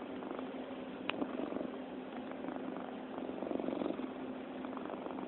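Domestic cat purring steadily while being petted, the purr growing louder and softer in slow waves. A short click sounds about a second in.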